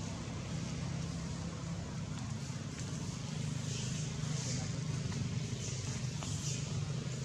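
Steady low engine hum of distant vehicles, with a few faint high hissing sounds about halfway through.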